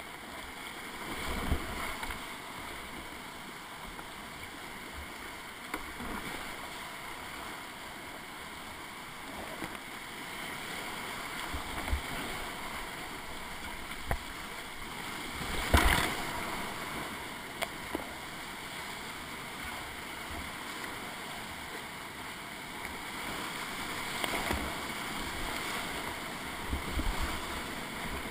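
Whitewater rapids rushing steadily around a kayak as it is paddled downriver, with several sudden splashes as the paddle strikes the water; the loudest comes about halfway through.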